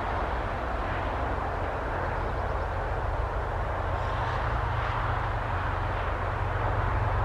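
SU46 diesel locomotive approaching with its train: a steady low engine rumble under a hiss of rolling noise, growing slightly louder near the end.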